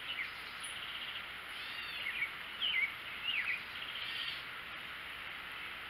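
Songbirds calling and singing: a string of short chirps and quick sweeping notes, two of them fast buzzy trills, over a steady outdoor hiss.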